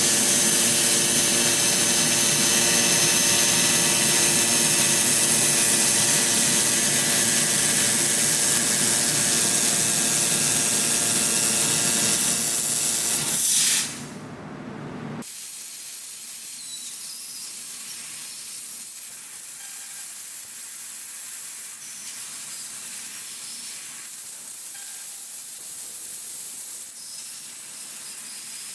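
12 kW fibre laser cutter cutting 16 mm stainless steel: a loud, steady hiss of assist gas jetting through the cutting head, with steady machine tones under it. About 15 seconds in it drops off sharply to a much quieter steady hiss.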